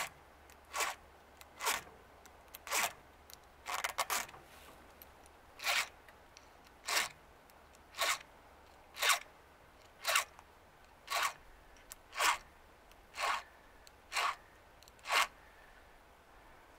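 Chainsaw file rasping across the cutter teeth of a chainsaw chain in short strokes, about one a second, a dozen or so in a row, stopping near the end.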